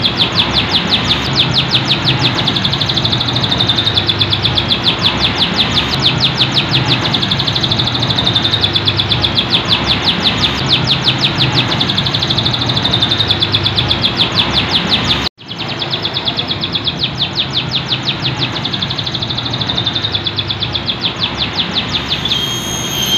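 Caged canary singing continuously in long, fast rolling trills of rapidly repeated notes. It breaks off for an instant about fifteen seconds in, then carries on.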